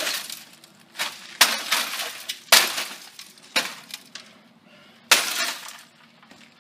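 Hammer blows smashing the broken cabinet and chassis of an old GE CRT television: about five hard hits roughly a second apart, each with loose glass shards clinking and breaking.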